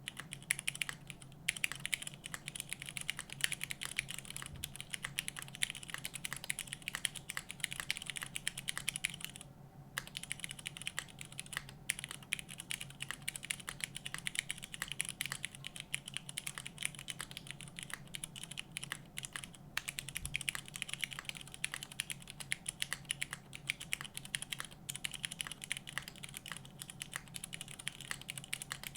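Fast, continuous typing on a Safa 5.88 mechanical keyboard with unlubed Cherry MX Brown tactile switches (hyperglides, 65 g springs) in an o-ring-mounted aluminium plate, under GMK keycaps, with a brief pause about ten seconds in.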